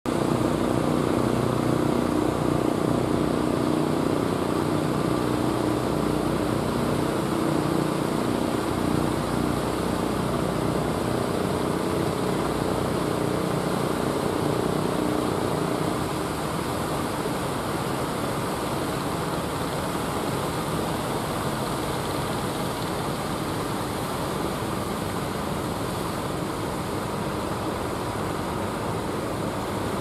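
A steady boat-engine drone over a continuous wash of surf and wind noise. The sound is louder in the first half and drops a step about halfway through.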